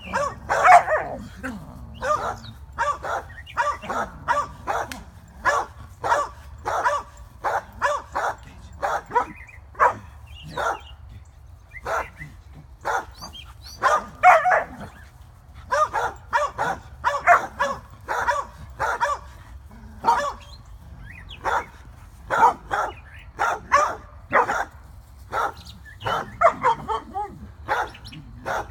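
A dog barking over and over, about two short barks a second, with brief pauses between runs.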